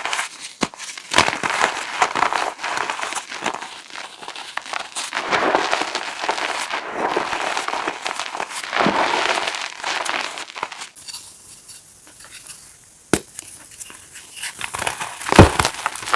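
Reformed gym chalk being crushed, a dense run of crisp crunching and crackling. It eases off about eleven seconds in, then comes a single sharp snap and, near the end, one loud crunch.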